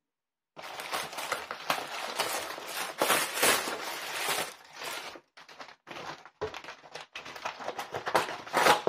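Plastic packaging crinkling and rustling as a box wrapped in inflatable air-column wrap is pulled out of a torn plastic mailer bag. It starts about half a second in and runs continuously for a few seconds, then breaks into short separate crinkles.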